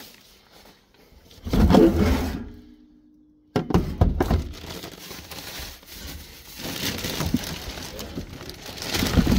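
Rubbish being rummaged through inside a large metal commercial bin: plastic items and bin bags rustling, scraping and clattering. There is a loud thump about a second and a half in, and a short quiet pause just after.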